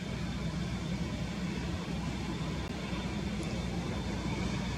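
Jet airliner engines running at taxi power: a steady low rumble with a faint, steady high whine over it.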